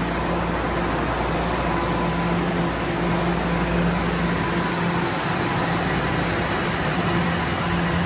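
Steady hum of a TTC Toronto Rocket subway train standing at the platform, its air conditioning and onboard equipment running with a few steady low tones over a constant whoosh. The low rumble underneath drops away briefly in the second half.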